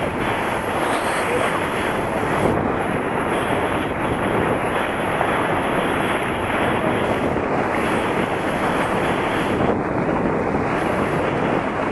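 Steady rush of wind buffeting the microphone on the open deck of a ferry under way, with water washing past the hull beneath it.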